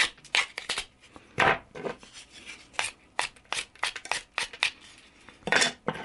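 Freshly sharpened pocket knife blade cutting chips from a wooden block: a run of short, crisp, irregular cuts, about two or three a second, with a longer, louder stroke near the end.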